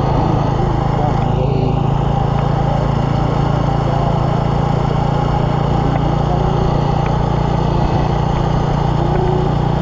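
Motorcycle engine running steadily while being ridden at a constant speed, its pitch holding level without revving up or down.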